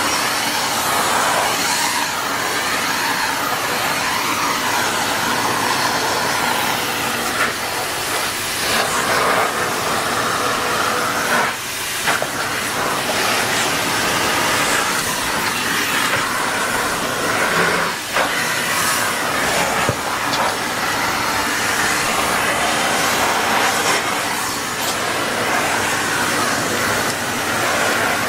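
Vacuum cleaner running steadily: a loud, even whooshing hiss with a faint steady whine, briefly dipping twice, about twelve and eighteen seconds in.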